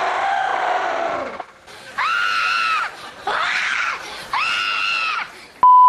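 A young girl screaming hysterically, overcome with excitement as a fan meeting her idol: a long wavering wail that falls away, then three short, high-pitched shrieks about a second apart. A loud, steady censor bleep cuts in just before the end.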